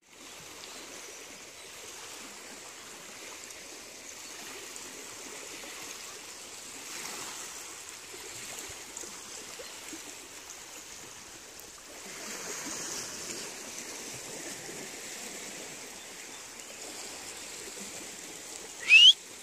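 Small waves lapping gently on a rocky shore, a steady soft wash of water. Near the end, a short, loud whistle rises in pitch.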